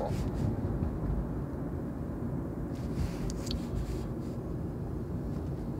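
Steady low background rumble, with a brief faint rustle about three seconds in.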